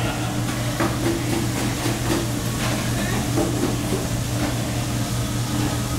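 Steady hum of restaurant kitchen machinery, such as the exhaust hood fans over the grill, with a few scattered clinks and knocks from kitchen work.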